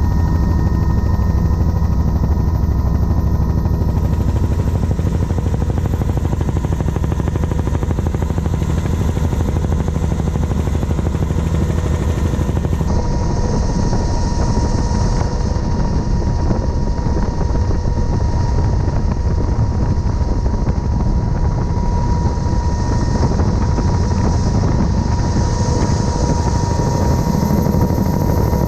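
Helicopter in flight heard from on board: a loud, steady drone with the fast beat of the rotor blades and a constant high whine over it. The sound shifts slightly in character about halfway through.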